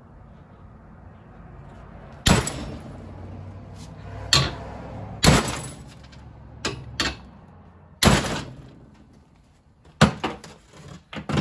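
Large hammer striking a steel gas pedal arm clamped in a bench vise, bending it: single heavy metal-on-metal blows a second or two apart, each ringing briefly, then a quick run of knocks near the end.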